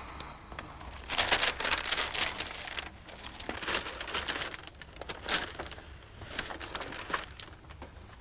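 Sheets of paper rustling and sliding as they are leafed through and pulled out from under an LP sleeve. The longest, loudest rustle comes about a second in, followed by several shorter ones.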